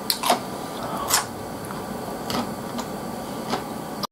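A person chewing a mouthful of tenshinhan, rice with omelette and thick sauce, with a few scattered wet mouth clicks and smacks over a steady background hiss.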